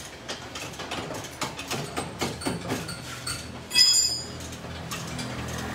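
Metal hand tools clinking and knocking on a car's front suspension and engine bay, with one loud metallic clank about four seconds in that rings briefly. A low steady hum starts near the end.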